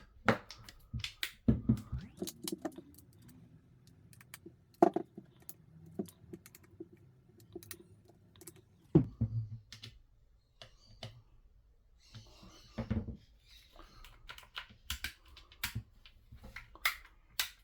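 Irregular light clicks and taps of hard plastic and small metal parts being handled, as a power-tool housing and screwdriver are set down and turned over.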